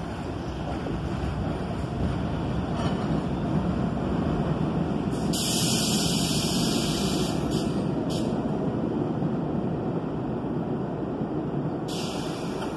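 Subway train pulling out along an elevated track: a steady rumble of wheels on rail that swells to its loudest about six seconds in, then fades. Bursts of high hiss come in the middle and again near the end.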